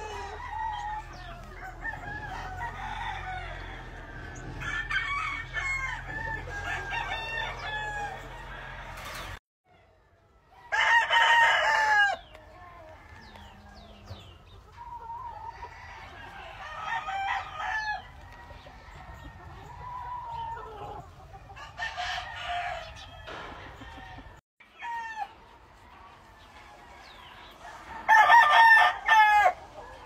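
Roosters crowing, two loud crows about a third of the way in and near the end, with chickens clucking and calling between them.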